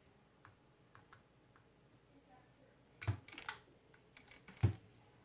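Small objects handled on a workbench: a few faint ticks, then a cluster of sharper clicks about three seconds in, and a single dull knock near the end, the loudest sound.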